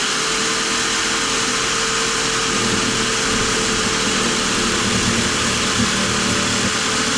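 Electric jigsaw running at a steady speed with a constant whine, its blade cutting through wood.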